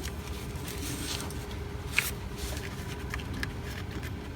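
Faint handling noises from a new coolant hose and its fitting being worked into an engine-block port by hand, with one sharp click about two seconds in, over a steady low hum.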